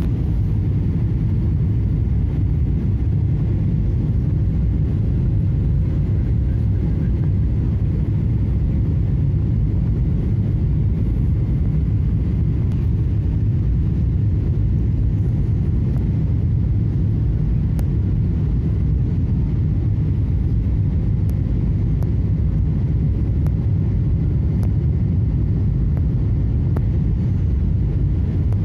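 Airliner cabin noise on approach to landing: a steady low rumble of the jet engines and rushing air, heard from inside the cabin, with a faint steady hum over it.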